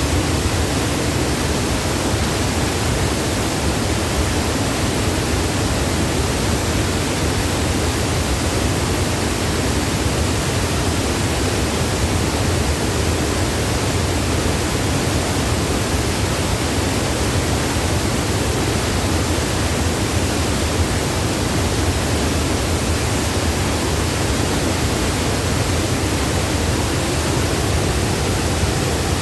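Waterfall: a loud, steady rush of falling water that never changes.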